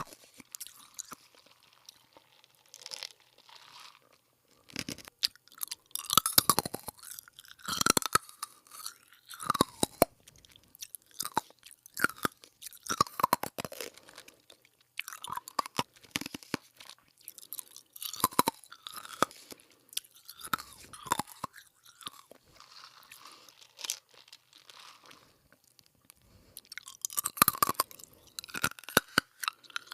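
Crunchy food being bitten and chewed, irregular runs of crisp crunches with a few short pauses.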